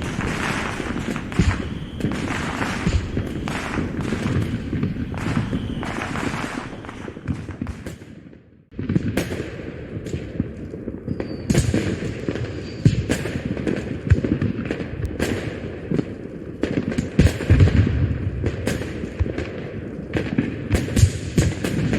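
Dubbed-in fireworks sound effect: a dense, continuous barrage of bursting aerial shells, booms and crackles. It fades out and breaks off for a moment about eight or nine seconds in, then starts again at full strength.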